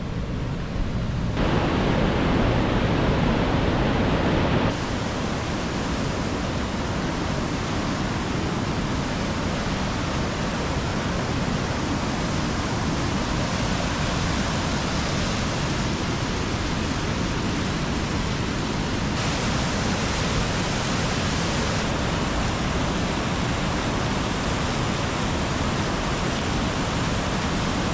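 Heavy water rushing through a dam's spillway: a loud, steady rush of whitewater. It is a little louder for a few seconds near the start.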